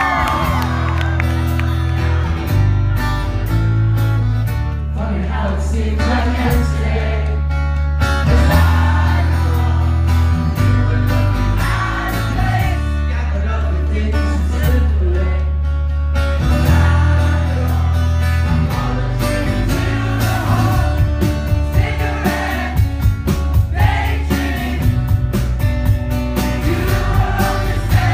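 Live band playing a slow rock song: acoustic guitar strumming over steady bass notes, with a male lead vocal singing through the PA.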